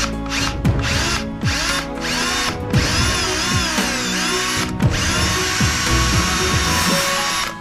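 Milwaukee cordless drill boring out a seized ABS wheel-speed sensor broken off flush in the steering knuckle, the twist bit grinding steadily through the sensor's remains. Background music plays underneath.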